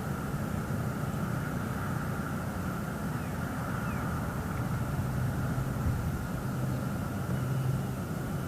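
Steady low rumble with a constant hum, like distant motor traffic, with a few faint short chirps near the middle.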